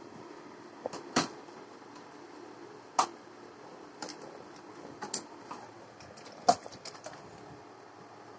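Irregular sharp clicks and knocks, about nine in all, a second or so apart, over low room hiss. The loudest come a little after one second, at three seconds and at six and a half seconds.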